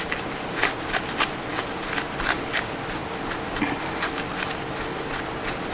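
Paper towel wiping over a graphics card's GPU chip to clear leftover thermal paste: a soft steady rubbing with light, irregular scratchy ticks.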